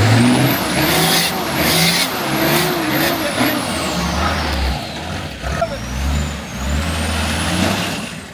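Off-road four-wheel-drive's engine revving up and down in bursts under load as it climbs a rocky, off-camber track, with a high whine rising and falling with the revs. There are a few sharp scrabbling bursts in the first two seconds.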